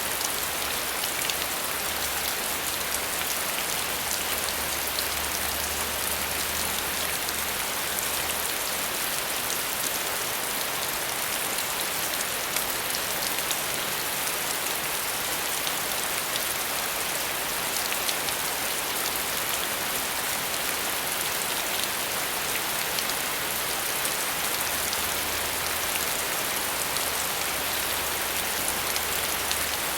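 Steady rain falling, an even hiss with scattered drops striking, unchanging throughout.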